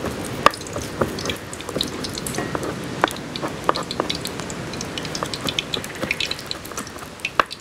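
Hot oil sizzling and crackling in a wok, with many small sharp pops.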